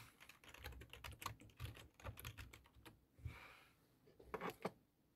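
Faint typing on a keyboard: quick light clicks for about three seconds, a short soft hiss, then a few more clicks near the end.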